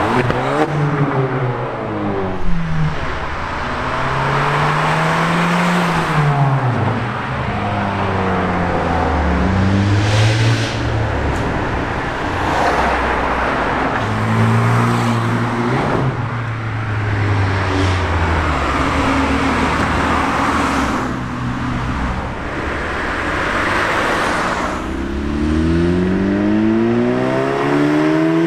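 A series of hot hatchbacks accelerating hard past one after another. Each engine note climbs, breaks at a gear change and falls away as the car goes by. Near the end a VW Scirocco comes up with its engine note rising steeply.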